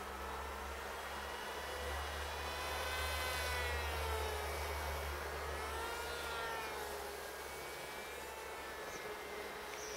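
Small electric RC plane's motor and propeller whining in flight, the pitch sliding up and down as it flies past and changes throttle. It is loudest a few seconds in, over a steady low rumble.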